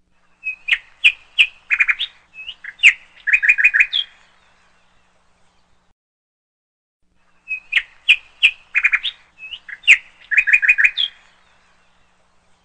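Songbird singing a phrase of sharp chirps and short whistles that ends in a quick run of four or five notes. The identical phrase plays twice with a pause of about three seconds between, a looped birdsong recording.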